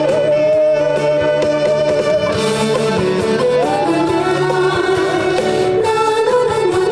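Korean trot song performed live through a stage PA: a woman singing to a backing track with a regular drum beat and long held melody notes.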